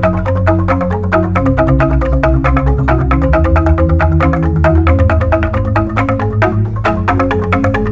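Balinese jegog ensemble of bamboo-tube xylophones playing an instrumental piece: fast, dense interlocking mallet strikes over deep, sustained bass tones from the largest bamboo tubes.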